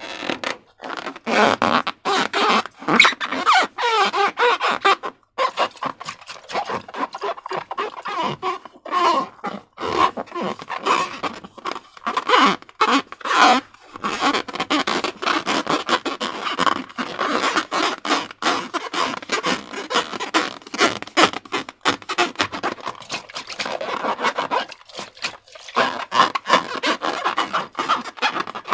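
Slime being squished and kneaded by hand: a dense, irregular run of sharp clicks and crackles that keeps going with only brief pauses.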